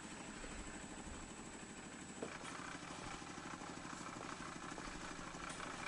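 A small engine idling steadily, its firing pulses even, with a single sharp knock about two seconds in.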